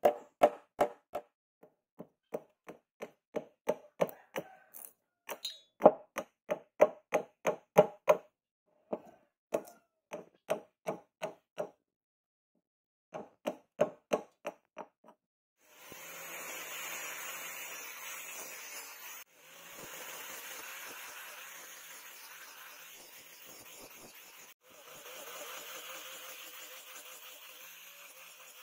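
Quick, sharp strikes on wood, two or three a second: a hammer tapping a steel ferrule onto a wooden handle block, then a hatchet chopping the block into a knife handle. About sixteen seconds in, an electric angle grinder with a sanding disc starts grinding the wooden handle, running steadily with two short breaks.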